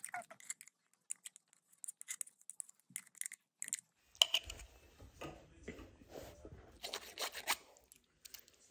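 A metal spoon clicking and scraping against a small plastic cup, in scattered light strokes. From about four seconds in, denser rustling and crinkling as the plastic cup and clothing are handled.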